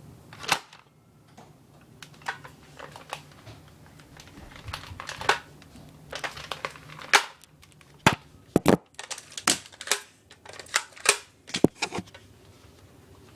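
Nerf blasters being primed and fired: an irregular string of sharp clicks and pops, some fifteen in all, coming thicker and louder in the second half.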